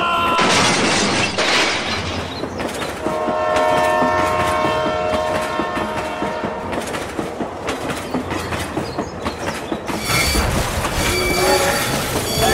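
Train sounds: wheels clacking steadily over the rail joints, a rush of hiss near the start, and a train horn blowing a steady chord for about four seconds in the middle. A second horn blast begins near the end.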